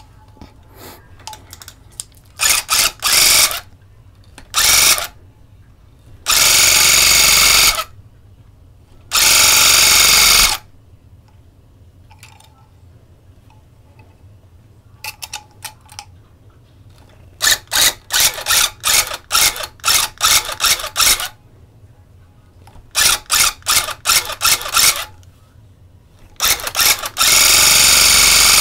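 Electric tufting gun punching yarn into the backing cloth in stop-start bursts. First come a few short bursts, then two longer runs of about a second and a half, then quick strings of short bursts, and finally another long run near the end.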